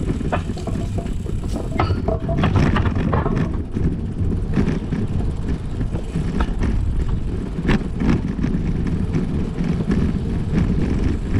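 Riding a bicycle: a steady low rushing of wind and road noise on the microphone, with scattered light clicks and rattles from the bike.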